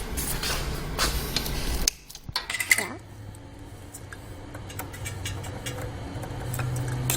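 Handling noise with light metallic clinks and clicks as battery cables and terminal hardware are fitted to a portable generator's starter battery. A rustling noise stops abruptly about two seconds in, leaving scattered small clicks over a faint low hum.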